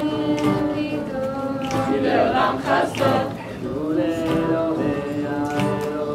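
Mixed group of young men and women singing an original psalm (tehillim) setting together in long held notes, to acoustic guitar accompaniment.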